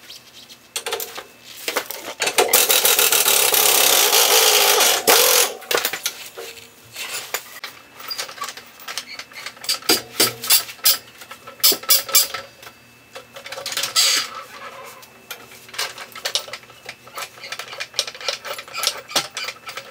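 Impact wrench hammering on a suspension lower control arm bolt for about three seconds, with a shorter burst about 14 seconds in. Between the bursts come sharp metallic clicks and knocks of tools working the bolt.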